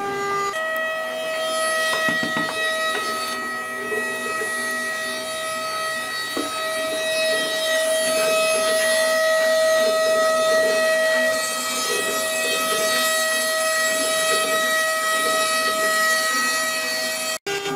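CNC router carving wood: a steady, even whine from the machine runs over the rough noise of the bit cutting into the board. The sound breaks off for an instant near the end.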